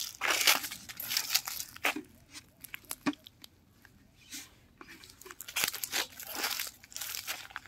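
Footsteps crunching through dry fallen leaves and twigs, in irregular bursts with a quieter pause about halfway through.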